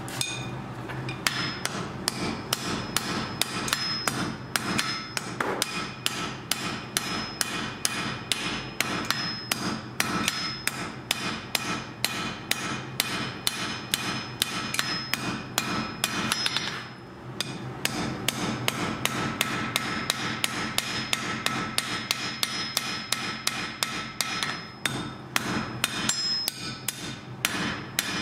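Blacksmith's hammer striking iron on an anvil in a steady rhythm of blows, a few a second, each blow ringing. There is a short pause a little past the middle before the hammering resumes.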